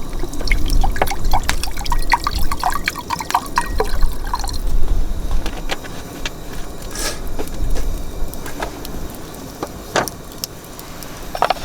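Liquid being poured, glugging in quick pitched blips for the first few seconds, then scattered sharp clicks, over a low rumble of wind on the microphone.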